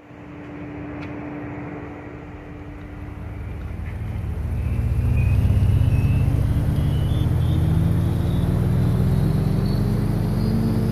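A machine running with a steady hum, then a louder deep rumble from about four seconds in, its pitch climbing slowly and steadily.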